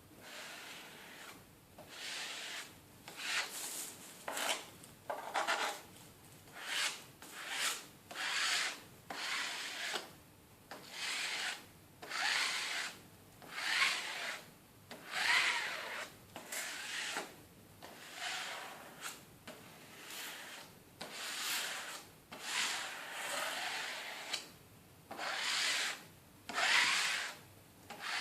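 A card scraped back and forth over the glue-coated face of a cardboard jigsaw puzzle, in repeated rubbing strokes about one a second. It is spreading the glue and working it into the gaps between the pieces.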